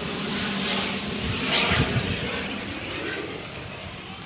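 Steady drone of an airplane's engines passing overhead, slowly fading toward the end. A brief rustle and knock about a second and a half in.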